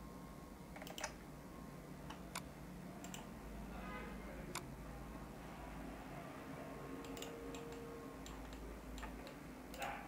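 Computer mouse clicks, faint, short and irregularly spaced, about ten of them, over a low steady hum.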